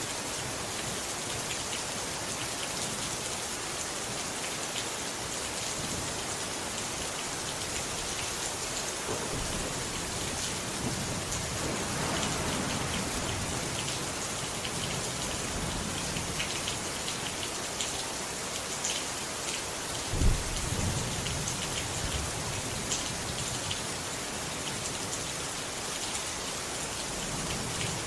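Steady heavy rain pattering, with low thunder rumbles and one sudden loud thunderclap about twenty seconds in.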